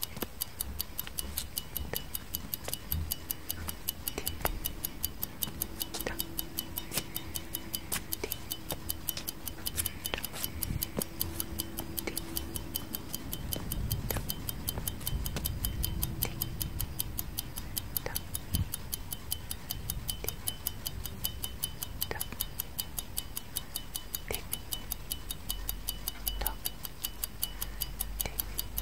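Clock ticking sound effect: a steady, even run of rapid ticks, with a louder click about every two seconds.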